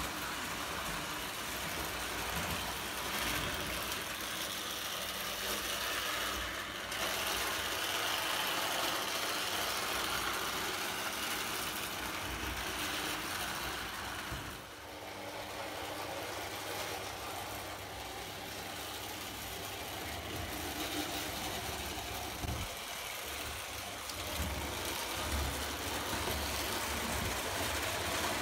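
O gauge Lionel toy train running on tinplate track: a steady mechanical rumble of wheels and electric motor, easing off briefly about halfway.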